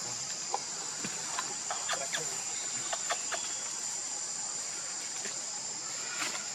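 Steady high-pitched insect drone, crickets or cicadas, with scattered short chirps and clicks over it.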